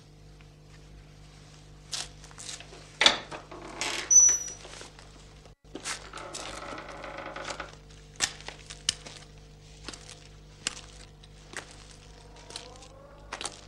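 Irregular knocks and clicks, a few of them sharp, with a scraping stretch in the middle, over a steady low hum.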